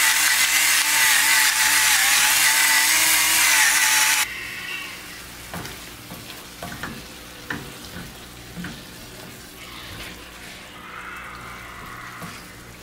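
Chicken thigh pieces frying in oil in a nonstick pan: a loud, steady sizzle that cuts off abruptly about four seconds in. After that the sizzle is much quieter, with the clicks and scrapes of a spatula stirring the pieces around the pan.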